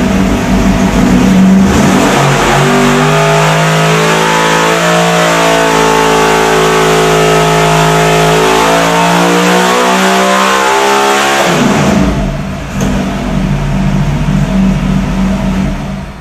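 Naturally aspirated racing engine of about 2,000 horsepower on an engine dynamometer, pulled at full throttle under load, its pitch climbing steadily toward 8,000 rpm. About twelve seconds in the throttle is closed and it drops back to a lower, uneven running sound, going quiet at the very end.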